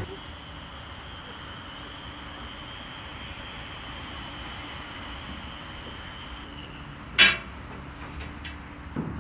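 Steady background rumble with a faint high whine that stops about six and a half seconds in, then one sharp knock about seven seconds in and a lighter one near the end, from handling packed lighting-pole bundles inside a steel shipping container.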